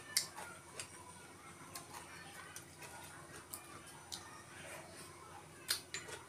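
Eating sounds: chewing and mouth smacks, with sharp clicks of wooden chopsticks against a ceramic rice bowl, two of them louder, a little after the start and near the end.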